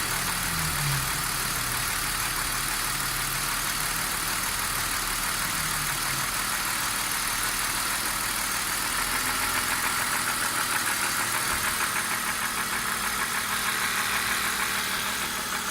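BMW E39 engine idling steadily with a fast, even knocking through it. The owner finds that this knock goes away when the oil filler cap is lifted.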